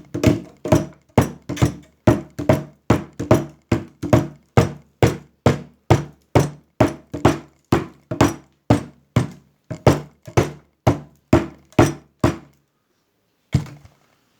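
Hammer blows on the core of a Lister D radiator, flattening and crushing it closed to block off the leaking tubes. The blows come in a steady rhythm, about two and a half a second, each ringing briefly. They stop about twelve and a half seconds in, with one last knock a second later.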